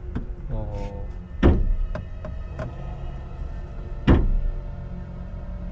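Two heavy thuds about two and a half seconds apart, over a steady low drone.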